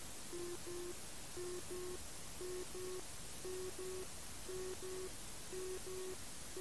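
A low electronic double beep, repeating about once a second over a steady hiss.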